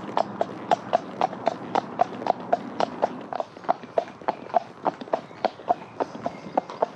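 A horse's hooves striking a tarmac road in a steady clip-clop, about four hoofbeats a second.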